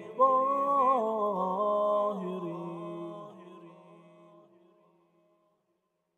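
Wordless a cappella vocal chant, a sung melodic phrase with pitch glides, fading out and ending about five seconds in.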